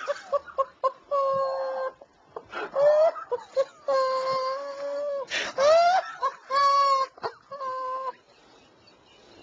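A man talking in a strange, high, squeaky whine: a string of drawn-out wavering notes, each held up to about a second, that stops near the end. It is a voice made odd by vocal cords damaged in a botched operation.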